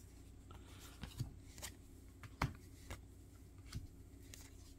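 2024 Topps Heritage baseball cards being thumbed through by hand, one card slid off the front of the stack after another: faint, soft flicks and slides of card stock, the sharpest about two and a half seconds in.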